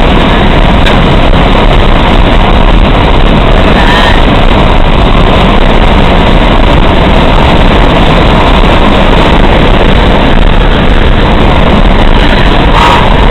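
Steady, loud road and wind noise of a car driving at highway speed, heard from inside the car, so loud that the recording is overloaded.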